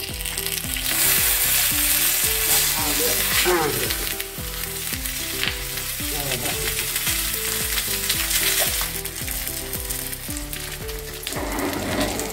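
A banana-leaf parcel of fish sizzling in coconut oil on a hot dosa griddle. The sizzle rises just after the parcel is turned over at the start and then settles to a steadier, softer frying hiss.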